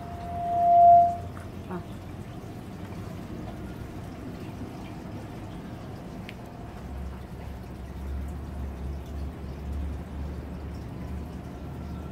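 A single steady tone swells for about a second and stops, followed by a light click. After that only a faint background, with a low rumble from about halfway in.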